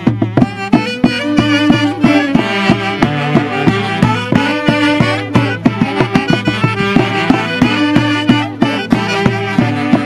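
Huancavelica Santiago folk music played by a band of saxophones and drums, the melody over a steady drum beat.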